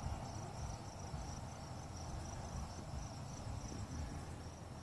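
Night insects chirping in a steady, high-pitched, rapidly pulsing trill, over a low background rumble.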